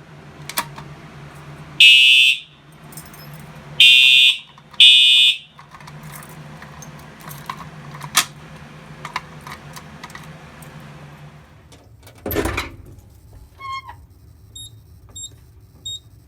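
Fire alarm horn sounding three short blasts, each about half a second, the last two close together, as devices are set off in an audible walk test of a fire alarm panel. Faint short high beeps follow near the end.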